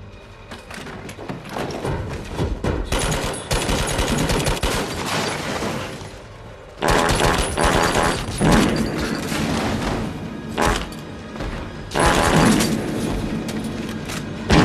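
Rapid gunfire over music in an action-film soundtrack, building over the first few seconds, easing briefly about six seconds in, then coming back suddenly louder.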